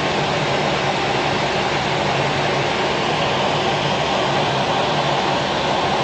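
Aircraft in flight heard from inside: a steady rushing noise with a faint low hum underneath.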